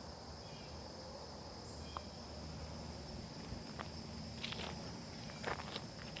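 Steady high-pitched insect chorus, with a few brief clicks scattered through it.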